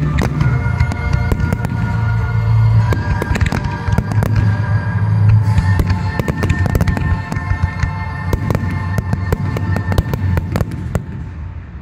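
Fireworks display: many sharp bangs and crackling bursts in quick succession over loud accompanying music. The music and the bursts die away near the end.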